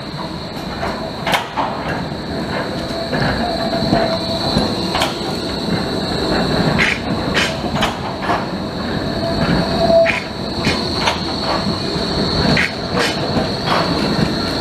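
Bombardier Flexity tram rounding a tight street curve: its wheels squeal steadily and high against the rails, a lower squeal swells briefly twice, and irregular clacks come as the wheels run over the track joints and crossings.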